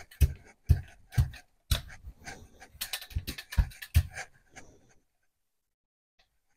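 Hand brayer rolling acrylic paint back and forth across a gel printing plate, a short swish and thud with each stroke about twice a second, mixing the colours on the plate. The rolling stops about five seconds in.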